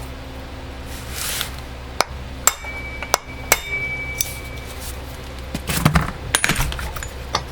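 Light hammer taps on a punch held against the chainsaw's crankshaft end, to free the flywheel from the crank. The taps are spaced out in a few sharp metallic knocks, two of which ring briefly, with more knocks near the end.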